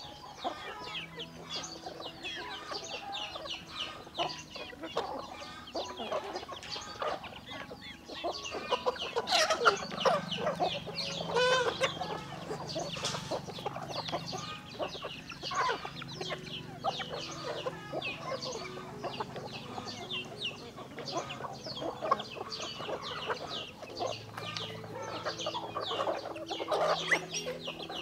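Chickens clucking and calling, many short overlapping calls, with a louder burst of calling around ten to thirteen seconds in.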